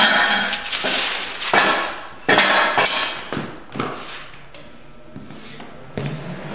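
Steel exhaust header parts clanking and clinking as they are handled: about seven sharp, ringing metal knocks over the first four seconds, then it goes quieter. A steady low hum starts near the end.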